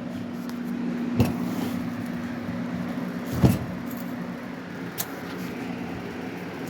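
Steady low hum of a fan or air conditioner, with three short knocks from handling the bicycle frame, the loudest about three and a half seconds in.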